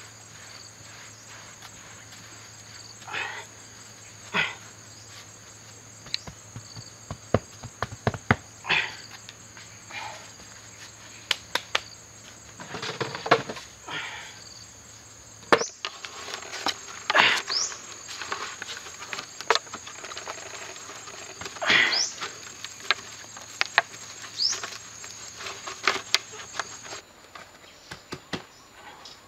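Hands scraping and scooping loose soil in short, irregular strokes. A steady high-pitched insect drone runs behind it.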